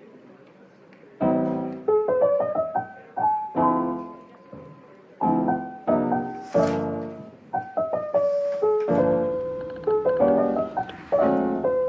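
Piano music: a melody over struck chords, each note sounding and then dying away, starting about a second in after faint hiss.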